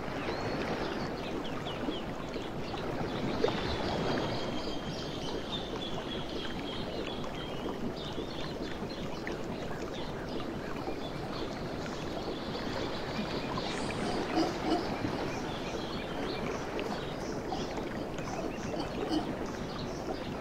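Mantled howler monkeys calling: a steady rough roar, with a few short rhythmic grunts about two-thirds of the way through. Birds chirp and whistle above it.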